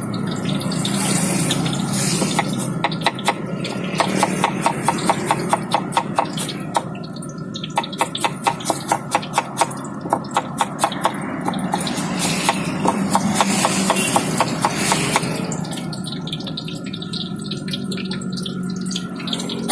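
Knife chopping cabbage on a wooden cutting board: runs of quick, even knocks at about four a second, in several bursts, over steady background noise.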